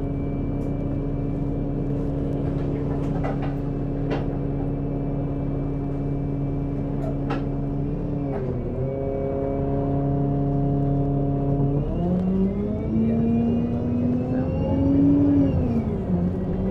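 Bus engine idling steadily, with a few clicks and knocks. About twelve seconds in it pulls away: the engine pitch rises, drops at a gear change near the end, then starts rising again.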